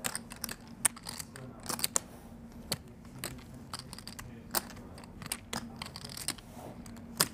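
Poker chips clicking irregularly, sometimes in quick clusters, as players handle their chip stacks on the felt. A faint steady hum runs underneath.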